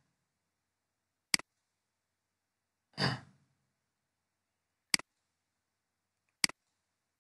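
Three sharp computer mouse clicks, a second or two apart, and one short breath out close to the microphone between the first and second click.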